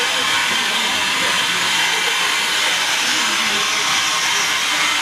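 Steady hiss of escaping steam from a standing steam locomotive.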